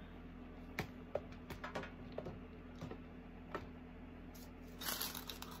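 Light, scattered clicks of small plastic diamond-painting drills and their storage container being handled. About four and a half seconds in comes a short rattling rush as the drills are tipped out.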